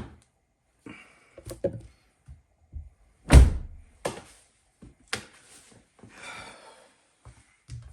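2016 Dodge Charger door shutting with one heavy thunk about three seconds in, surrounded by lighter clicks and knocks of the door latch and handle; the latch, freed of ice and greased, is catching again.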